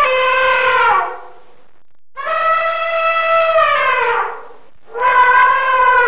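Elephant trumpeting: three long, loud calls, the first ending about a second in, the second from about two to four seconds in, the third starting near the five-second mark. The first two slide down in pitch as they end.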